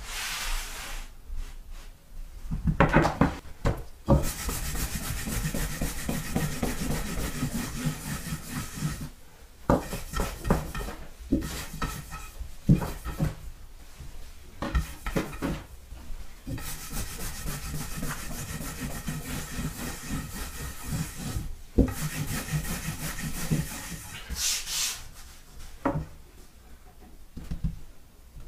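A long wooden rolling pin rolled back and forth over a sheet of buckwheat noodle dough on a wooden board: a steady rubbing swish in long strokes with short pauses between them. It is broken by a few sharp wooden knocks.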